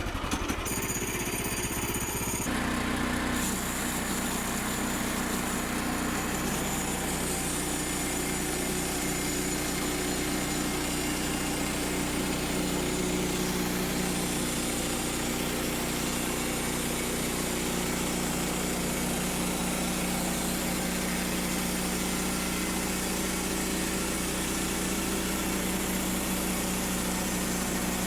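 Small gasoline engine of a Woodland Mills portable band sawmill running steadily as the blade cuts a board; its note shifts and settles about two and a half seconds in, then holds even.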